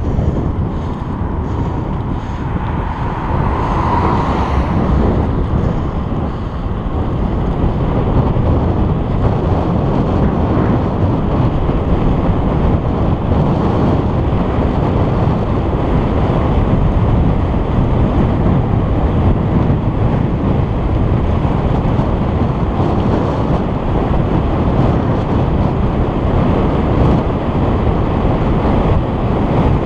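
Steady wind noise buffeting the microphone of a camera on a moving bicycle, a low rushing rumble with the ride's road noise under it.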